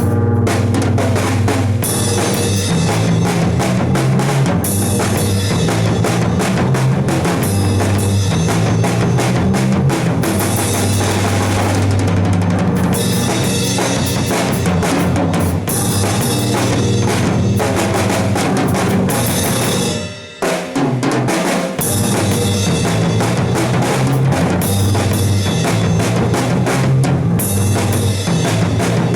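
Music led by a drum kit, with kick drum and snare over steady low notes. The playing drops out briefly about twenty seconds in, then carries on.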